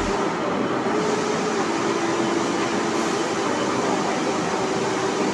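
Steady machinery hum of a metal-working shop, an even running noise with a held mid-pitched tone that does not change.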